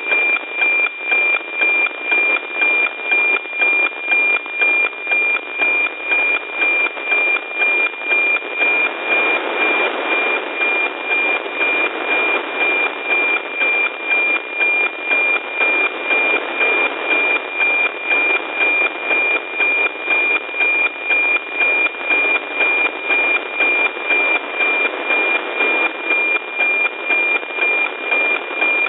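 NOAA 15 weather satellite's APT image signal, received on an RTL-SDR and played as FM-demodulated audio: a steady high tone pulsing with a regular tick-tock about twice a second, over radio static. Each tick-tock is one scan line of the weather image coming down.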